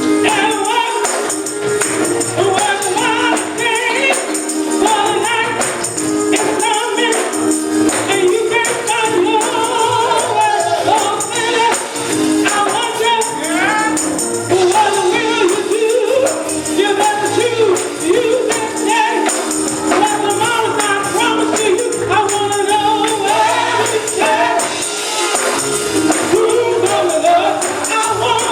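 Gospel singing by a group of voices with a tambourine shaking throughout and a steady musical accompaniment underneath.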